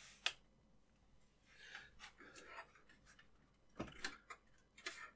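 A few sharp clicks and light knocks from the DEC 3000 Model 500 workstation's case cover as hands push and tug at it. The loudest is a single click about a quarter second in, with two more close together about four seconds in and another near the end.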